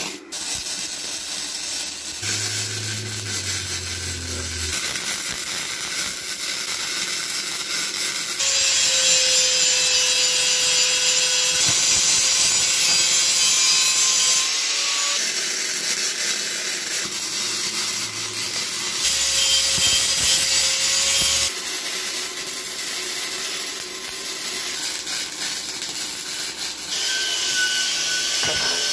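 Angle grinder grinding on a cast iron exhaust manifold. It is loudest in two stretches of several seconds, where a steady whine runs over the grinding, with quieter scraping in between.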